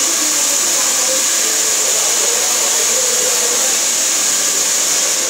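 Handheld hair dryer blowing steadily while a client's hair is styled, cutting off at the very end.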